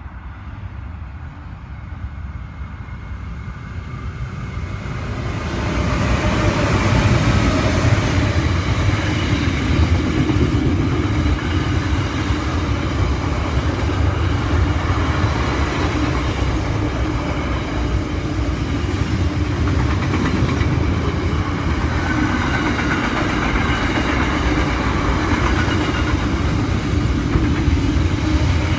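Freight train passing at speed: the rumble of two Pacific National NR class diesel-electric locomotives grows louder over the first five or six seconds as they arrive, then a steady loud rumble and rattle of container wagons rolling past.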